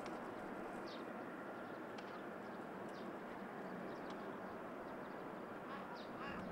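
Faint, steady noise of a distant Airbus airliner's jet engines, with small birds chirping now and then, several chirps near the end.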